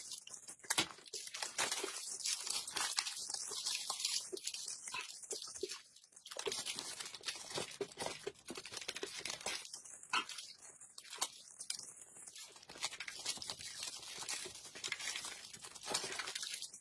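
Plastic wrapping crinkling and tearing as it is peeled off a snack, mixed with close wet eating noises of food being sucked off a spoon: slurps, smacks and many small clicks.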